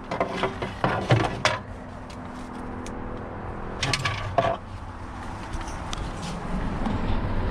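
Small hard parts and hand tools clicking and clattering as they are handled, in a cluster of clicks over the first second and a half and another brief clatter about four seconds in.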